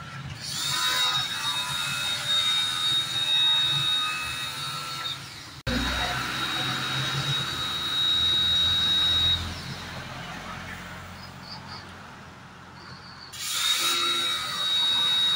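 Electric pressure washer running with a steady high whine, its jet spraying water through rubber intake hoses. The washer falls quiet for a few seconds in the second half, then starts up again near the end.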